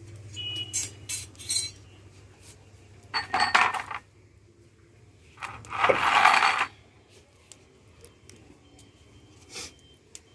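Metal kadai (wok) clinking and scraping as it is lifted off a clay wood-fired stove and set down on a concrete floor. There are light clinks first, then a scrape about three seconds in and a longer, louder scrape about six seconds in.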